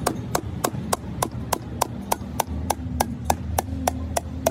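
Steady rapid hammer tapping, about four sharp knocks a second, keeping an even beat.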